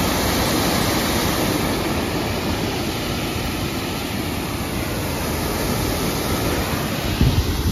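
Steady, even rushing noise outdoors, with a few low wind buffets on the microphone near the end.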